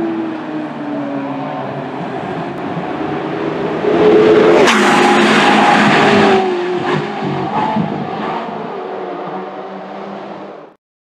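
Ferrari 458 Challenge race cars' V8 engines running at speed while driving away down the straight; one car passes close about four seconds in, louder, with several sharp cracks from its exhaust, then fades into the distance. The sound cuts off abruptly near the end.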